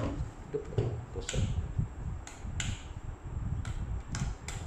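Handling noise from a plastic gel blaster being moved on a cloth-covered surface: about half a dozen short, irregular clicks and taps over a steady low rumble.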